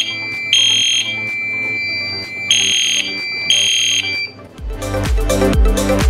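Fire alarm system sounding after the pull station is activated: a steady high electronic tone with three louder blasts. It cuts off about four seconds in as the alarm is silenced at the annunciator, and electronic background music with a heavy beat takes over.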